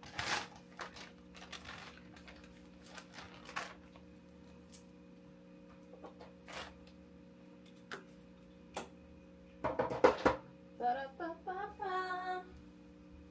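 Packaging and small items being handled: scattered rustles and clicks, with a louder burst of knocks and rattles about ten seconds in.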